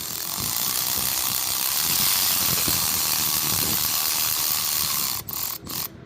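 A pressurised jet hissing loudly and steadily for about five seconds, then two short bursts near the end.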